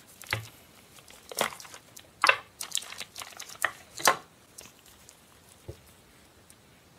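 Plastic gashapon toy capsule being opened and its paper insert pulled out and unfolded: a quick run of sharp plastic clicks and paper crinkles over about four seconds, then one faint tick near the end.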